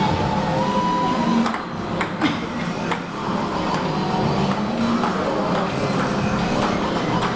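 Table tennis ball clicking off chopping boards used as paddles and off the table during rallies: sharp irregular clicks, a cluster about one and a half to three seconds in and more near the end, over a steady background din.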